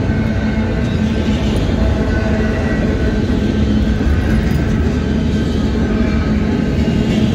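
Union Pacific intermodal freight train's cars rolling past: a steady, loud rumble of wheels on rail.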